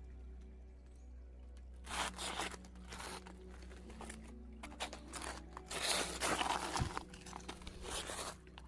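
Gravel and loose rocks crunching and shifting in several short bursts, the longest a little past the middle, over a steady low rumble.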